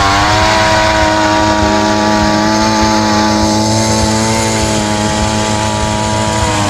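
Gas-powered ice auger's two-stroke engine running steadily at high speed as the auger bit bores into lake ice.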